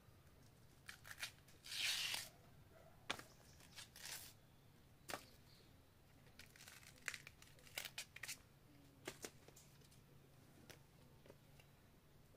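Banana stalk sheaths being peeled off by hand: a tearing rip about two seconds in, and scattered short snaps and cracks of the fibrous layers through the rest.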